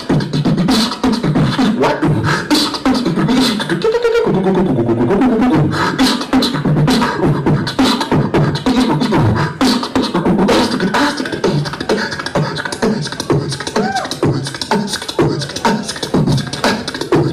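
A man beatboxing a steady rhythm of mouth-made drum sounds, with a wordless sung line over it about four seconds in.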